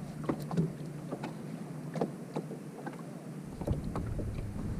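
Sound on a small fishing boat: a steady low hum with light wind and water noise, and scattered small clicks and taps from handling a spinning rod and reel.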